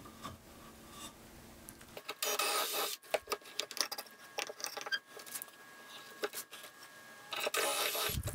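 A metal doweling jig is handled and set on a pine board, giving scattered clicks and knocks, with a short rasping burst about two seconds in. Near the end a Makita cordless drill runs briefly, boring a dowel hole into the pine through the jig's guide.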